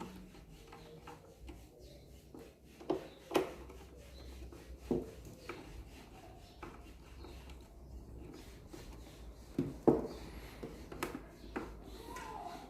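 Scattered knocks, clicks and rubbing as a loudspeaker and its screws are handled and positioned in a wooden speaker cabinet; the sharpest knock comes about ten seconds in.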